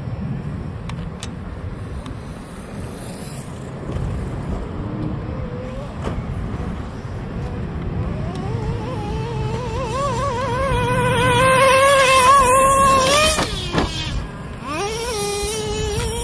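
Traxxas Slayer's 3.3 two-stroke nitro engine running at high revs: a high-pitched, wavering buzz rises out of a low rumble about halfway through and gets louder, then drops sharply as the throttle comes off and revs straight back up near the end.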